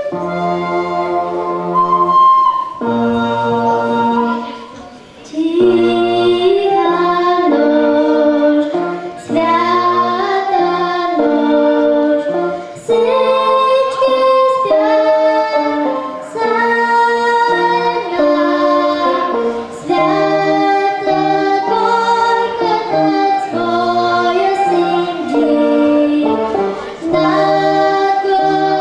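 A girl singing a song into a microphone, accompanied by an electronic keyboard and a recorder, with a short pause about four seconds in.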